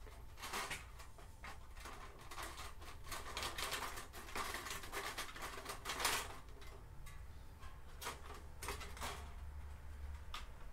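Thin metal head gasket being eased down over the head studs onto a VR6 engine block: irregular light metallic ticks and scrapes as it brushes the studs, with a brief cluster of them about six seconds in.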